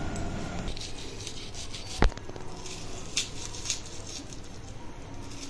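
Kitchen knife slicing through a red onion held in the hand: soft, irregular crisp cuts, with one sharp click about two seconds in.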